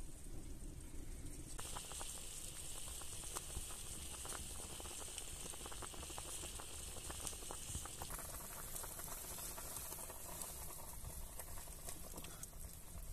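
Meat broth boiling hard in an enamel bowl over a wood fire: a dense, steady bubbling hiss full of small pops, starting about a second and a half in. It changes tone after about eight seconds.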